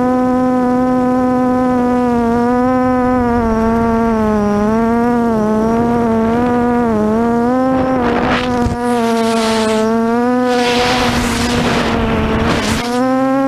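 Lumenier QAV400 quadcopter's SunnySky X2212 980 KV brushless motors with 8x4.5 propellers running in a high, buzzing whine whose pitch wavers up and down with throttle. In the second half, two long rushes of wind noise swell over it. Near the end a lower hum joins the whine.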